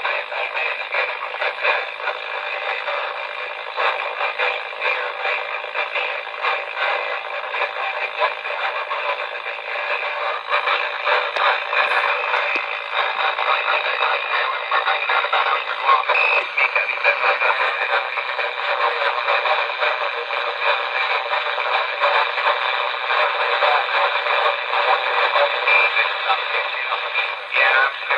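CB radio receiver on channel 19 playing a distant skip transmission through its speaker: a narrow, tinny, hissy signal that rises and falls continuously, with an unclear voice half-buried in the static.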